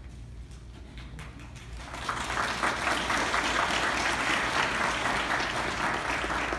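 Audience applauding: a few scattered claps at first, swelling to full, dense applause about two seconds in.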